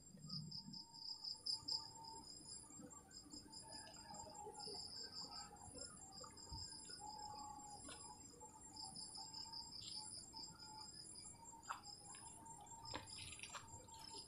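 Insects chirping in short pulsed runs, with a faint steady high whine behind them. A few light clicks and rustles come near the end.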